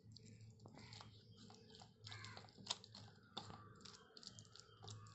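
A hand kneading and turning raw chicken pieces in thick wet masala marinade in a steel bowl: a faint, irregular run of small wet clicks and squelches.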